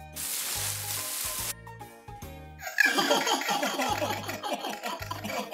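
Children's background music with a steady bass line. A hissing burst of noise lasts about a second and a half at the start. From about three seconds in, cartoon baby laughter takes over, louder than the music.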